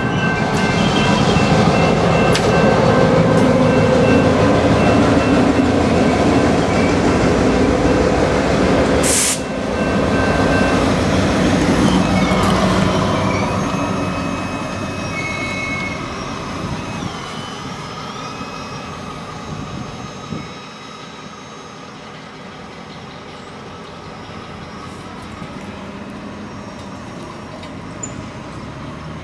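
Norfolk Southern rebuilt GP38-3 diesel locomotive and a single coil car passing close by, engine running and wheels rolling on the rails, with a brief loud rush of noise about nine seconds in. The sound fades steadily from about halfway through as the train moves away.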